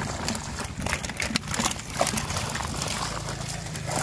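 Tilapia thrashing and splashing in a landing net as it is scooped through the water of a mesh keep net, giving many irregular splashes and slaps of water. A low steady hum runs underneath.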